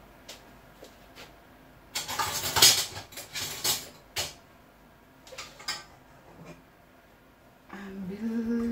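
Kitchen handling noises: about two seconds of clattering and rustling, then a few light knocks, as a pot and a bowl are moved about off camera. A steady pitched sound comes in near the end.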